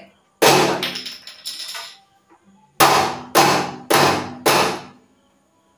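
Metal body of a two-burner gas stove being knocked and shaken while tipped on its side, to jar loose the crumbs and burnt bits clogged inside. A stretch of rattling clatter comes first, then four sharp metallic bangs about half a second apart.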